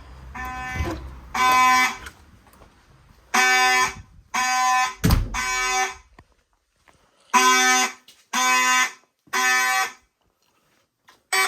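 Fire alarm horns sounding in the temporal-three evacuation pattern: three loud blasts, a pause, then three more, with one more blast starting near the end and cutting off at once. A brief low thump comes about five seconds in.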